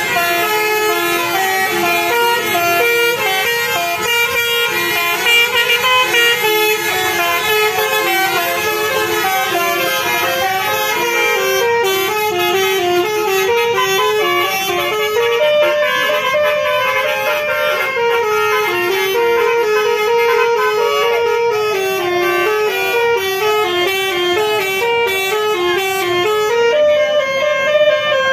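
Basuri telolet musical air horn on a bus playing a tune, a quick run of stepped horn notes rising and falling.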